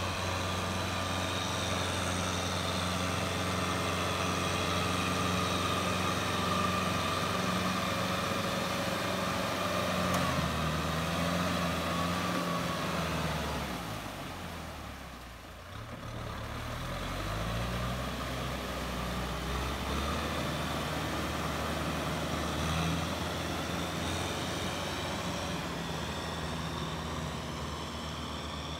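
Kubota M6040SU tractor's four-cylinder diesel engine running steadily under load as it pulls a disc plough through a flooded rice paddy. About halfway through the engine note sinks and briefly quietens, then climbs back to a steady drone.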